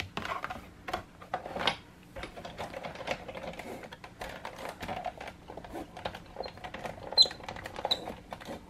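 Sizzix Big Shot die-cutting and embossing machine being hand-cranked, with a plate-and-embossing-folder sandwich feeding through its rollers to a run of irregular clicks and ticks. A few short high squeaks come near the end.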